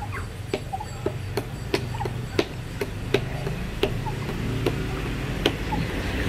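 Pump plunger of a 2-litre plastic hand pressure sprayer being worked up and down, with a sharp click on each stroke, about two to three a second. This is the pumping that pressurises the tank of disinfectant solution before spraying.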